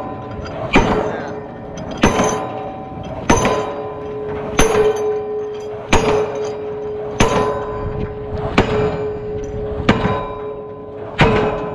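Diesel pile hammer driving a steel H-beam pile, with steady blows about every 1.3 seconds. After each blow the steel pile rings on a lingering tone.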